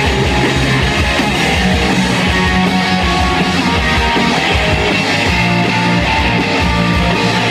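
Live rock band playing loud and steady: two electric guitars, bass guitar and a drum kit.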